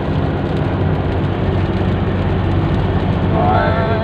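Inside a vehicle driving in heavy rain: a steady engine hum under an even hiss of rain and tyres on the wet road.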